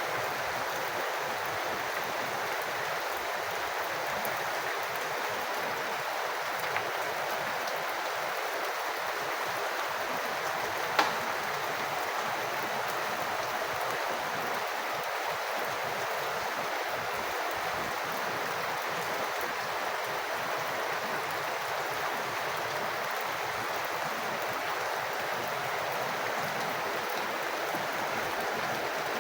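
Rainwater falling and splashing in a steady, even rushing hiss, with one sharp tap about eleven seconds in.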